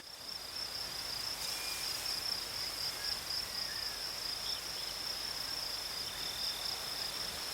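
Insects chirring in one continuous high-pitched trill, steady throughout, over a faint outdoor noise bed.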